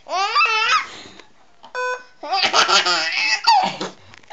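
Baby laughing hard in two bursts, a short one at the start and a longer one from a little after two seconds in. Between them, a short electronic beep sounds, the sound the baby is laughing at.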